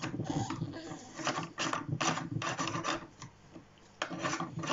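Hard plastic scraping and rubbing in a series of short strokes as the side cover of a HYCHIKA cordless chainsaw is fitted back over its bar and chain, with a pause of about a second near the end.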